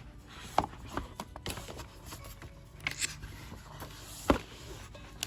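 Handling noises: a few short taps and clicks with light rustling, the loudest a sharp tap about four seconds in.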